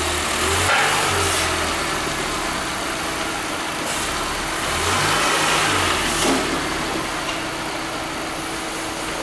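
Peugeot 206 1.4 engine running, revving up and back down twice, with a steady whine throughout. The mechanic wonders whether the whine is the power steering running short of fluid.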